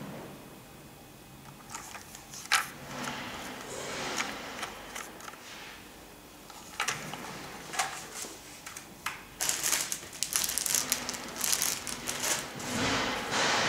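Handling noise from a Samsung VCC 5135H32 vacuum cleaner, switched off: scattered plastic clicks and knocks with rustling, and a denser run of clatter and rustle about two-thirds of the way in.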